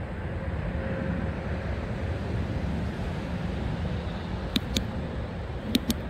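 Steady low outdoor rumble with no distinct source. Near the end come two quick pairs of sharp clicks, about a second apart.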